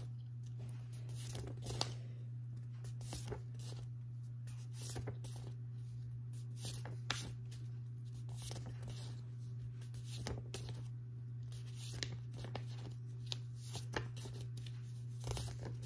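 Card flashcards being flipped off a stack one by one, a short papery flick or slide every second or two, over a steady low hum.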